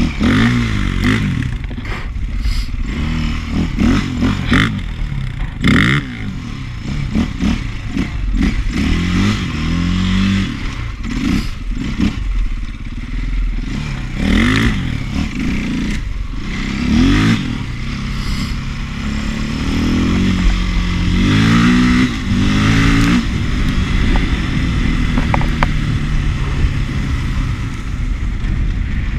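KTM 530 EXC dirt bike's single-cylinder four-stroke engine under way, its pitch climbing and dropping back again and again as the rider opens the throttle and backs off, with scattered knocks and rattles from the bike over rough ground.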